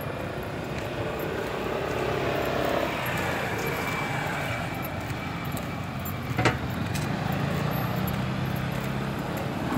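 Road traffic passing, with a motor scooter's engine approaching in the last few seconds. A single sharp click sounds a little past the middle.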